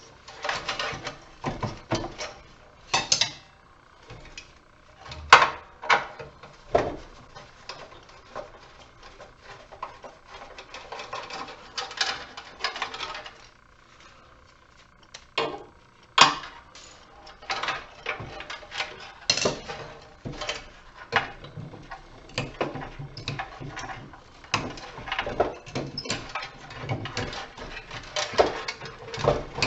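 Metal parts of a light fixture clanking and clinking irregularly as it is taken apart by hand for scrap, with a few louder knocks.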